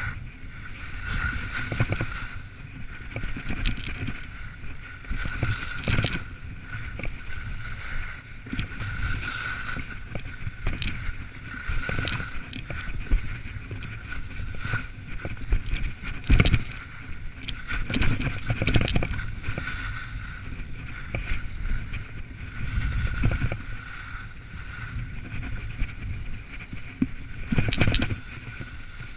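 Wind rushing over an action camera's microphone during a fast ski run, with the scrape and swish of edges on packed snow. A few sharp knocks cut through, the loudest a little past the middle.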